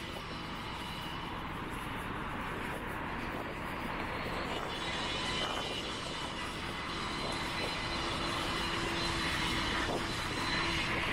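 A fixed-wing aircraft's engines heard overhead as a steady drone that grows gradually louder.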